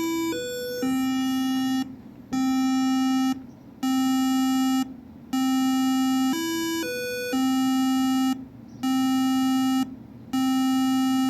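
Monophonic ringtone melody played as buzzy electronic square-wave beeps from an MSP430G2553 microcontroller through mini breadboard speakers. A short note and a higher one lead into a long lower note that repeats about once every one and a half seconds with short gaps, and the two-note figure comes back about six seconds in.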